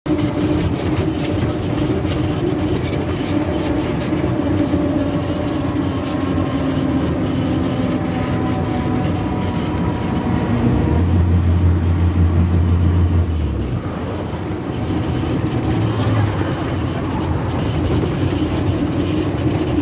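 Engine and road noise of a moving passenger vehicle heard from inside its cabin: a steady running hum, with a deeper drone that swells for a couple of seconds about halfway through.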